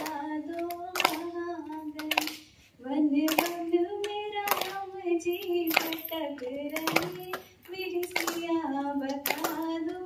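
A woman singing a Hindi song solo into a microphone in long, drawn-out, wavering notes, heard through the hall's sound system. Sharp claps come roughly once a second.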